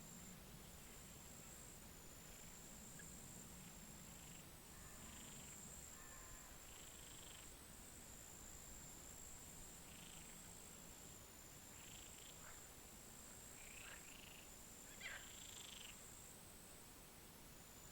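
Faint pond ambience: frogs calling low and soft, a steady high insect drone, and scattered faint short bird calls, with one sharper falling call about fifteen seconds in.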